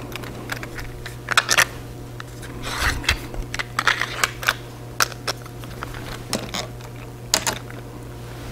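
Irregular light clicks and taps of 3D-printed plastic clock parts being handled: the pendulum rod and bob are fitted and moved by hand, with a brief rustle about three seconds in. A low steady hum runs underneath.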